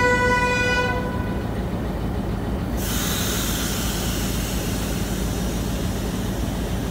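A diesel locomotive's horn holds one steady note and stops about a second in, over the locomotive's engine idling steadily. About three seconds in, a steady hiss starts suddenly and carries on.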